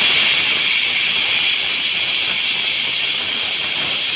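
Aluminium whistle-type pressure cooker blowing off steam through its weight valve: a loud, steady hiss with a high-pitched edge that eases slightly toward the end. The whistle is the sign that the cooker is at full pressure, and it is counted as one of the three whistles that cook the vegetables through.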